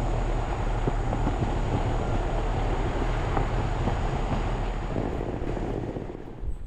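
10-ton 2013 Hitachi air conditioner / heat pump running in cool mode: a steady rush of air over a low hum, with a thin high whine above. The sound fades over the last second or so.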